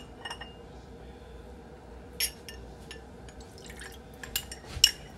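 A metal spoon clinking against small ceramic dishes while dark soy sauce is poured and scraped from a small dish into a bowl. It makes a handful of sharp, ringing clinks, the loudest about two seconds in and near the end.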